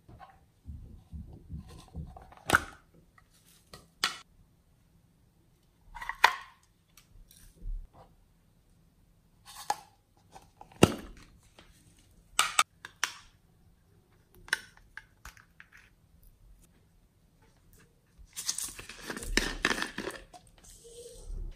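Small plastic cases being handled and opened with scattered clicks, taps and snaps. Near the end, glitter poured from a plastic bottle onto slime makes a dense rattling hiss for about two seconds.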